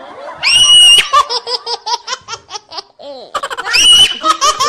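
High-pitched laughter: a held squeal that breaks into rapid cackling. It happens twice, the second squeal about three seconds in.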